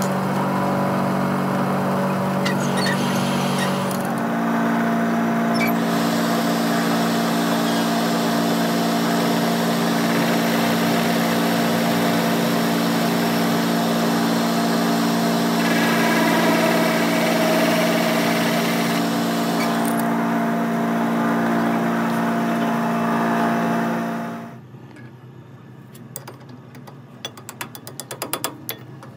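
Metal lathe running with a steady motor hum while a steel CV joint shaft turns in its chuck; the pitch steps up slightly about four seconds in. Near the end the lathe shuts off and the hum stops abruptly, followed by light metallic clicks as the steel parts are handled.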